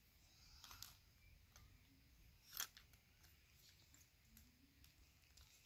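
Near silence with a few faint plastic clicks, the loudest about two and a half seconds in: toy plastic pliers gripping and working a plastic toy bolt.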